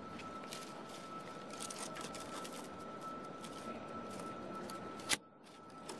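Faint rustling and light crackling of dry twigs and leaves, with a thin steady high tone underneath. A sharp click comes about five seconds in, and the sound is quieter after it.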